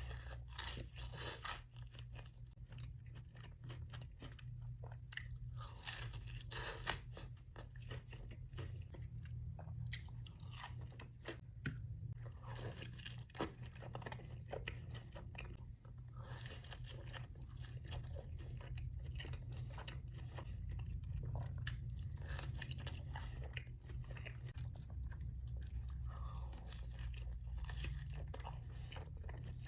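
Close-up eating sounds: crunchy bites and chewing, full of irregular sharp crackles, over a steady low hum.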